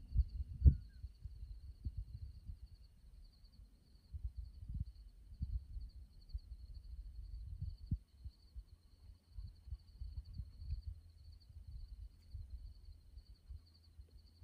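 Steady, finely pulsing high trill of night insects, with irregular low thumps and rumble throughout, strongest in the first second. A single faint short chirp comes about a second in.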